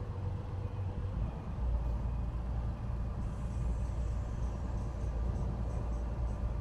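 The dhow's engine running with a steady low rumble that gets heavier about a second and a half in. A faint, regular high ticking comes in about halfway.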